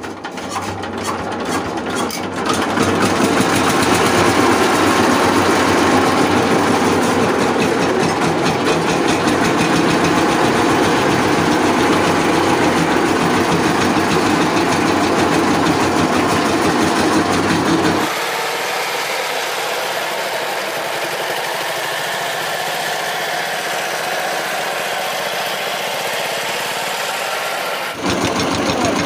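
VST Shakti 130 DI power tiller's single-cylinder diesel engine being hand-cranked and catching about two seconds in, then running steadily. The sound drops in level about 18 s in and picks up again near the end.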